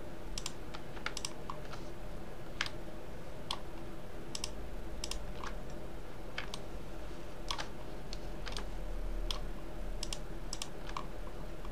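About twenty irregular, scattered clicks of a computer mouse's buttons and keyboard keys, over a steady low hum.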